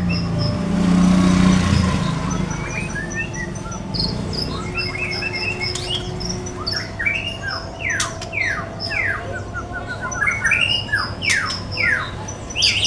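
Murai songbird singing varied whistled phrases and chirps. In the second half it breaks into a quick run of repeated downward-sweeping notes, the bird answering a lure song.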